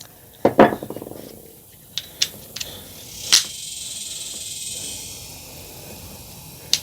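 Metal hand tools being handled: a ringing metallic clatter about half a second in, then several light clicks and a soft scraping hiss, with one more click near the end.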